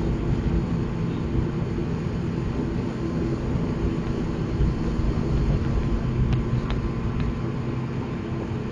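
ATR 42 turboprop engine and propeller heard from inside the cabin: a steady low drone with several steady pitched tones, as the aircraft rolls on the ground after landing. A few faint clicks come about six to seven seconds in.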